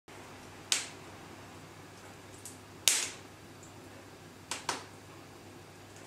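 Fire burning in the grate of a cast-iron kitchen range, crackling with a handful of sharp, irregularly spaced pops; the loudest comes about three seconds in.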